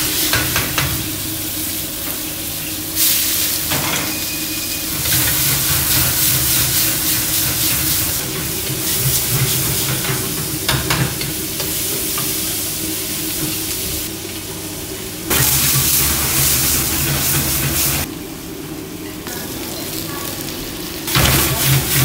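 Food sizzling hard in a wok over a high gas flame as it is stir-fried, with a metal spatula scraping and clicking against the wok. The loudness jumps up and down abruptly several times.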